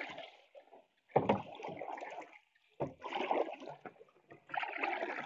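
Paddle strokes in pond water: three strokes about a second and a half apart, each a sharp splash that trails off into swishing water.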